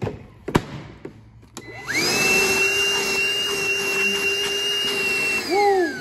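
Milwaukee cordless 2-gallon wet/dry vacuum switched on for a short test run. After a couple of clicks its motor spins up with a rising whine about two seconds in, runs steadily for about three and a half seconds, then is switched off and winds down near the end.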